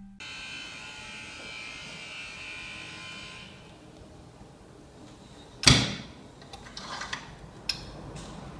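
Impulse hand sealer's arm brought down onto the sealing bar with one sharp, loud clack a little past halfway, followed by a few fainter clicks. Before it, a clear plastic bag rustles softly as it is fed into the jaw.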